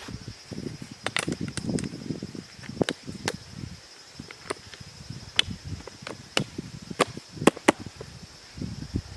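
Irregular sharp clicks and knocks, about a dozen, over low rustling: camping gear being handled and put together.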